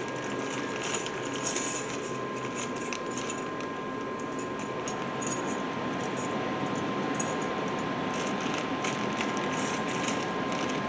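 Small metal brake-hardware clips being handled and sorted, with light clicks and jingling, over a steady background hum with a faint constant tone.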